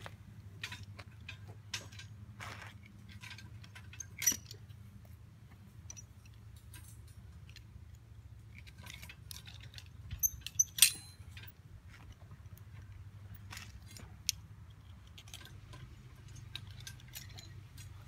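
Rebar being tied with wire ties and a tie-wire twister: scattered small metallic clicks, ticks and scrapes of wire against steel bar. There is a sharper click about four seconds in and a quick run of louder clicks around ten to eleven seconds, over a low steady hum.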